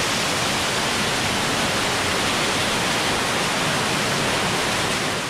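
Loud, steady rush of water from a stream falling through a narrow rock gorge.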